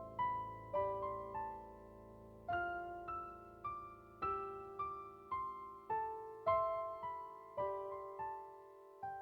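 Slow solo piano music: single notes and chords struck about one or two a second, each left to ring and fade.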